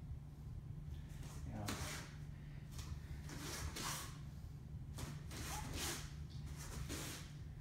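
Brief swishing sounds of a man's breath and movement, about ten in quick succession, as he throws karate strikes and turns, over a steady low hum.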